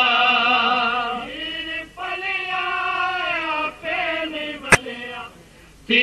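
Voice chanting a devotional lament (noha-style kalam) in long, wavering held notes, with a short break near the middle. A single sharp click sounds about three-quarters of the way through.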